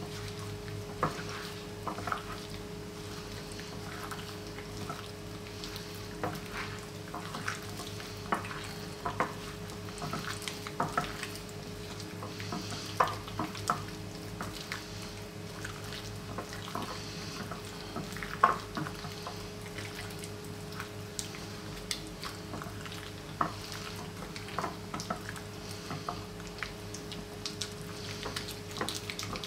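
A gloved hand squishing and turning pieces of fish through a wet egg and cornflour coating in a ceramic bowl. It gives irregular wet squelches, slaps and clicks against the bowl over a steady low hum.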